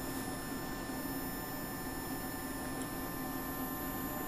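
Steady electrical hum with several faint constant high-pitched tones over a low hiss, from the bench electronics with the pulse-charging circuit running.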